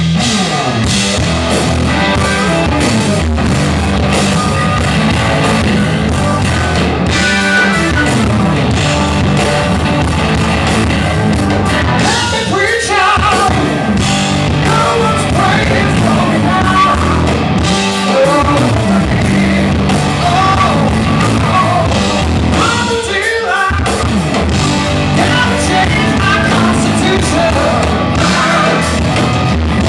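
Rock band playing live at full volume, with singing and electric guitar.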